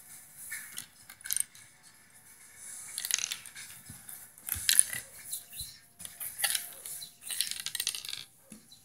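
Plastic Lego pieces clicking and rattling against a wooden tabletop as they are handled and moved, in short irregular bursts.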